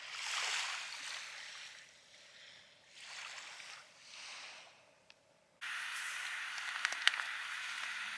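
Small waves washing onto a beach in surges, one after another, each rising and fading. About five and a half seconds in, the sound cuts abruptly to a steady hiss with a few sharp clicks.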